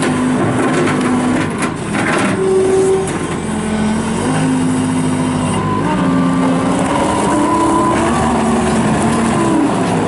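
Gehl R220 skid steer loader's diesel engine running as the machine drives and turns, its pitch stepping up and down as it is worked.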